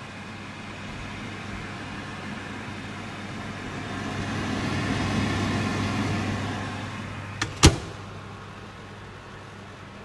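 Merrychef MDM1800 commercial microwave humming steadily, with two sharp clicks about three-quarters of the way in as its side-opening door is shut and latches.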